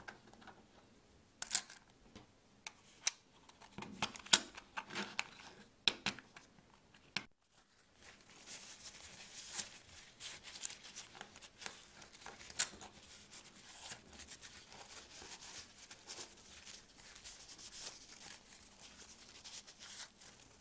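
Copper coins clicking against one another and against a plastic 3D-printed holder as they are set into stacks, a handful of separate clicks over several seconds. Then, after a sudden break, a paper tissue rustles and crinkles steadily while it is pressed and rubbed over the coins, with small clicks throughout.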